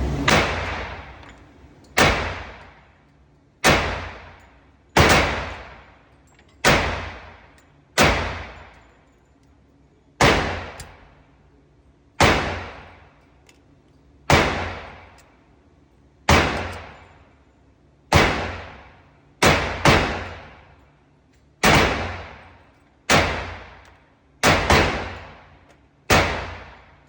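Ruger American .45 ACP semi-automatic pistol firing about eighteen single shots at a slow, steady pace, roughly one to two seconds apart, with two pairs fired in quick succession. Each shot is loud and sharp, with a long echoing tail.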